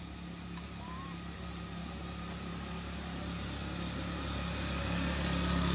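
A motor vehicle's engine running steadily, growing gradually louder.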